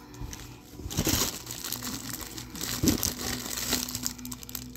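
Crinkling of packaging as items are handled, in many small irregular crackles.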